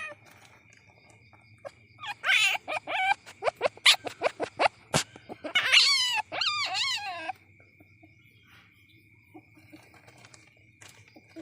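Young civet (musang) calling: high, wavering squeals and a quick run of short chirps for about five seconds, stopping a little past the middle.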